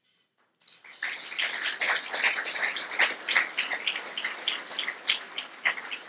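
Audience applauding, many people clapping together; it starts about half a second in and thins out toward the end.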